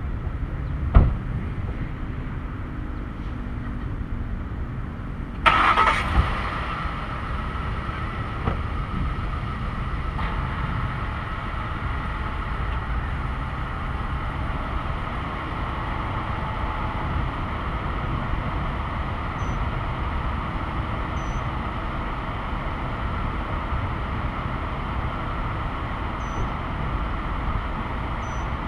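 A low rumble of vehicle noise, with a knock about a second in. About five seconds in, an engine or motor starts up and then runs steadily with a hum.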